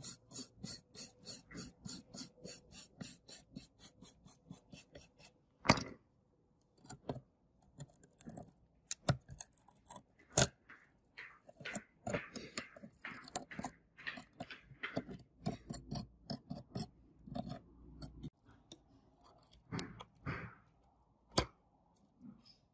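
Stiff brush scrubbing packed dirt off a phone's circuit board and metal frame in quick, even strokes, about four a second, for the first five seconds. After that, metal tweezers pick and scrape at the board and its shields, with irregular small clicks and a few sharp taps.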